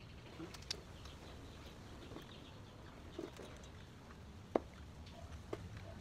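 Faint scattered clicks and scrapes of hand work on metal as a grease nipple is fitted into a motorcycle's steering head, with one sharper click about four and a half seconds in.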